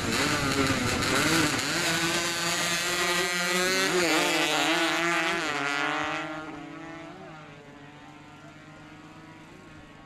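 Two drag-racing motorcycles launching at full throttle and accelerating down the strip. Their engine pitch climbs and drops back at gear changes about four and five and a half seconds in, then the sound fades away from about six seconds in as the bikes run off.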